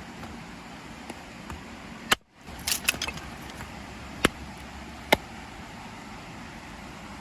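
Steady rushing of a nearby river, with a few sharp metallic clicks and clinks of camp gear being handled: one a little after two seconds, a quick cluster around three seconds, and two more single clicks about four and five seconds in.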